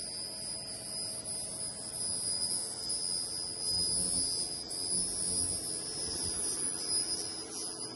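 Handheld pulsed laser cleaner buzzing steadily, with a high-pitched whine, as it ablates rust from the teeth of a large gear.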